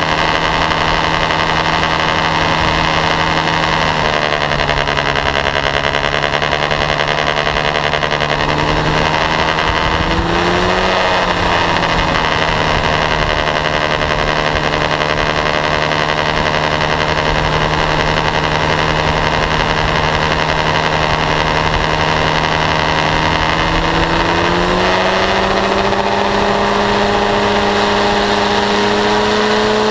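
Paramotor engine and propeller running steadily in flight. The engine pitch dips slightly about four seconds in, wavers briefly around ten seconds, then rises and holds higher near the end as the engine speeds up.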